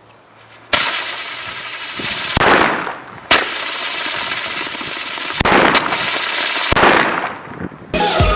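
Several loud hissing, crackling bursts of burning firework rockets, each starting suddenly one after another, with a single sharp crack a little after three seconds.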